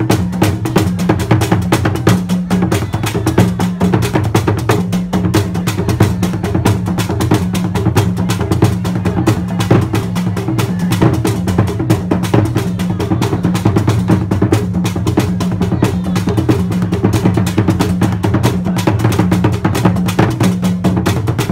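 Asante court drum ensemble of kete and fontomfrom drums playing a fast, dense rhythm: many rapid stick strokes over deep, steady low drum tones, without a break.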